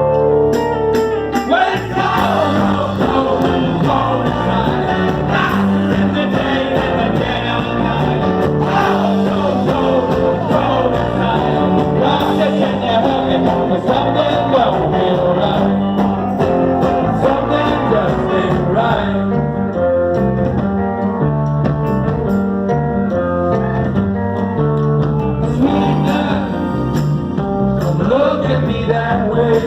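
A rock band playing live through a concert PA: electric guitar, bass and drums in a blues-tinged rock groove, the song's instrumental intro.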